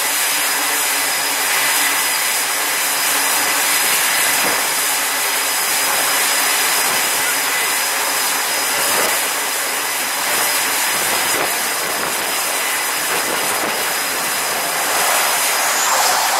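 Steady jet-engine and wind noise across an aircraft carrier's flight deck, with a thin steady high whine. Near the end it grows louder as an F/A-18 jet comes in on approach to land.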